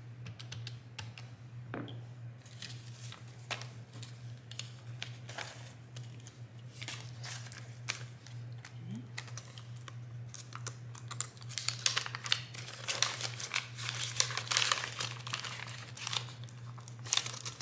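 Paper banknotes and the clear vinyl pocket of a budget binder being handled: crinkling and rustling with scattered small clicks, busier in the second half.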